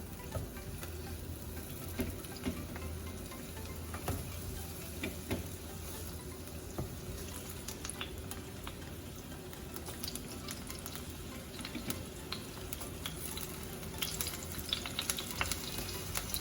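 Sliced luffa (sponge gourd) sizzling in hot oil in a pan while being stir-fried, with a utensil clicking and scraping against the pan. The clicks become busier in the last few seconds.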